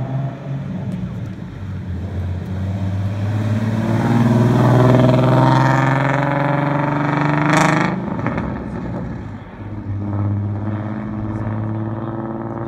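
Sports cars' engines revving as they accelerate away one after another, the pitch climbing and the sound growing to its loudest about seven seconds in. A sharp crack comes about seven and a half seconds in as the revs drop, and a second car's engine swells up from about ten seconds in.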